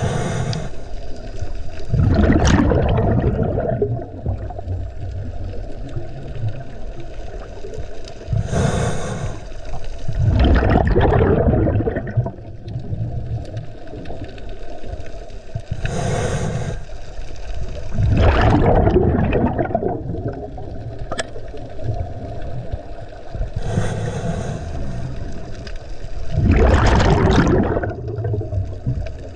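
Scuba diver breathing through a regulator underwater: four breaths about eight seconds apart, each a short hiss of inhalation followed by a longer, louder bubbling exhale.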